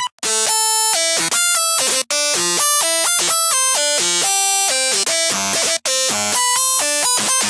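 Xfer Serum software synthesizer playing hard bass presets: buzzy tones, rich in harmonics, step through a quick melodic phrase of short notes. The sound cuts out briefly three times as one preset gives way to the next.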